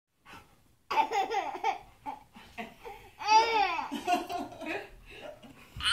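A baby laughing in short, high-pitched bursts, then a longer laugh that rises and falls in pitch about three seconds in.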